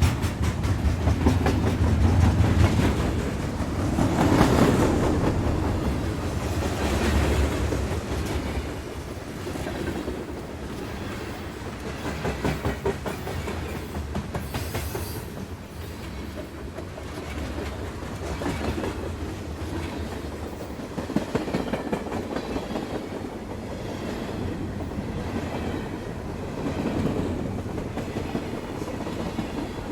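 Train running on the rails, its metal wheels clattering rhythmically over the rail joints (clickety-clack) over a steady rumble. The sound swells and eases off at times.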